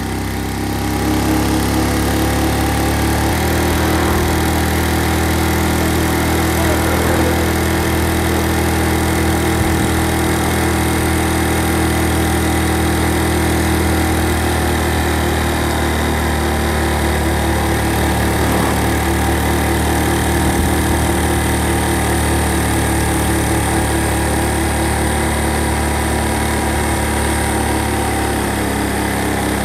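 A vehicle engine running steadily while driving along, with a small shift in its note about three seconds in.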